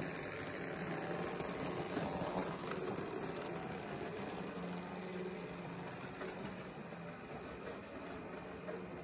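Märklin H0 model railcar running on metal three-rail track: a steady motor hum with the rattle of wheels on the rails. Two sharp clicks come about two and a half seconds in, and the sound slowly fades afterwards as the car moves away.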